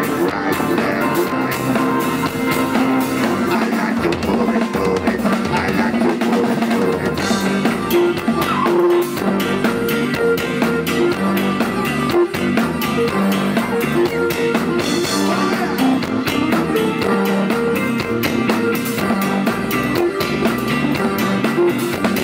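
Live rock band playing amplified through a PA: drum kit with steady beats and electric guitars.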